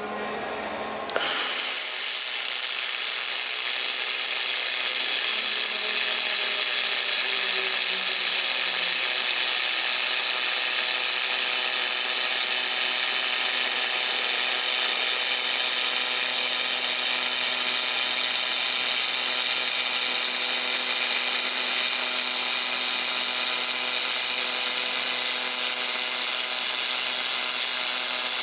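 Handheld fiber laser welder running: a loud steady hiss with several high whining tones that starts suddenly about a second in and holds steady.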